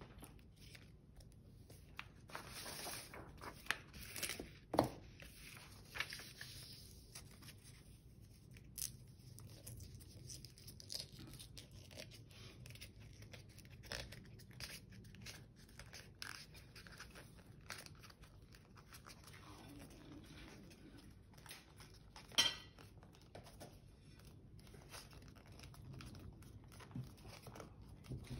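Sheet of printer paper rustling, crinkling and being creased as it is handled and folded on a table, in faint scattered crackles and taps. Two louder sharp sounds stand out, one about five seconds in and one about three-quarters of the way through.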